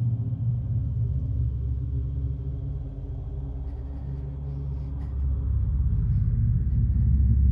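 Low rumbling drone of a dark horror film score: several steady held tones over a deep rumble, swelling louder over the last couple of seconds.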